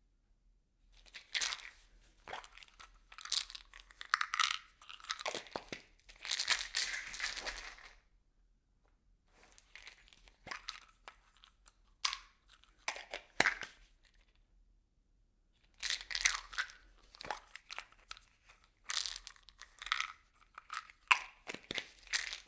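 Small objects rattling and clattering inside a plastic bottle as it is shaken, with the plastic crinkling. The shaking comes in three bursts of several seconds each, with short pauses between.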